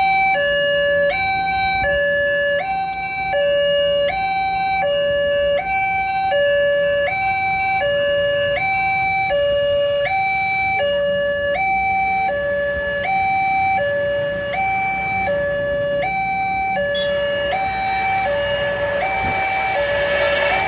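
Electronic two-tone warning alarm, likely a railway level-crossing signal, alternating steadily between a higher and a lower tone, each held about half a second. A low rumble runs underneath.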